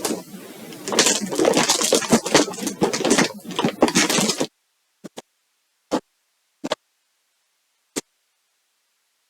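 Plastic yarn packaging crinkling and rustling as it is handled, for about four and a half seconds, followed by a few separate sharp clicks.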